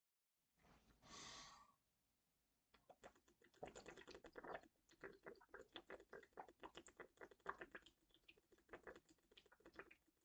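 Faint short hiss about a second in, then rapid, irregular faint clicking and crackling through the rest.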